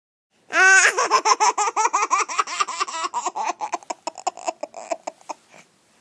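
A baby laughing: a long run of quick, high-pitched laughs that starts about half a second in, then slowly weakens and stops near the end.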